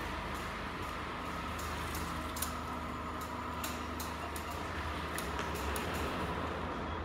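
A BYD Seal U DM-i making light, irregularly spaced clicks (çıt çıt) while turning, over a steady low hum. This is the clicking on turns that many owners of this model report, a fault the dealer's service was to fix.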